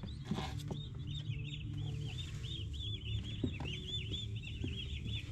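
Young turkey poults peeping constantly, many high-pitched chirps a second from several birds at once, with a few soft knocks.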